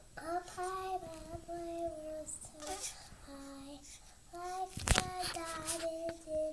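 A young girl singing a slow nursery tune in long held notes, with short breaks between phrases. A brief sharp knock about five seconds in.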